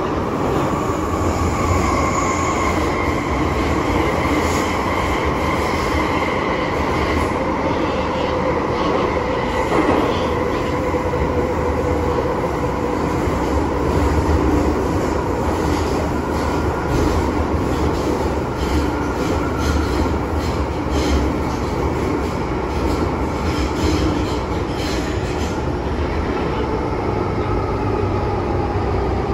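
Hong Kong MTR M-train electric multiple unit running, heard from inside the carriage: a loud howl of several whining tones that slowly fall in pitch over the rumble of the car. From about halfway through, a quick series of clicks comes from the wheels running over rail joints.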